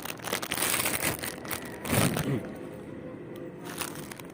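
Plastic packaging crinkling and rustling as it is handled and opened, loudest over the first two seconds with a sharp crackle about two seconds in, then softer rustling.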